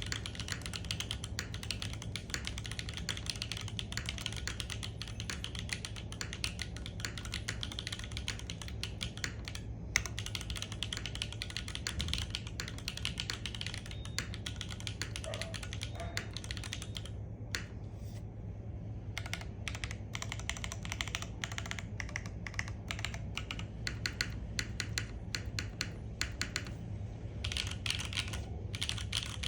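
Fast typing on a Tofu TKL mechanical keyboard with Gateron Type R switches and SWG keycaps: a dense, continuous stream of keystroke clacks that thins out briefly a little past halfway, over a steady low hum.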